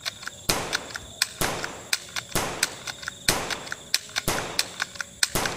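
Shotgun-style gunshot sound effects: six blasts about a second apart, each with a short fading tail, with lighter clicks between them.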